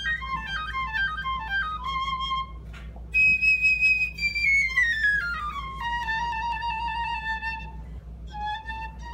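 Piccolo playing solo: quick runs of short notes tumbling downward, then after a brief break a long high note that slides down step by step and settles on a lower held note, with a short pause and an upward sweep near the end.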